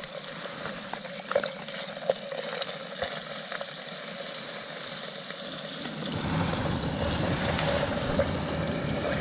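Scattered light clicks and knocks, then from about six seconds in the steady hissing rumble of a Jetboil gas stove burner, with meat frying in rendered fat.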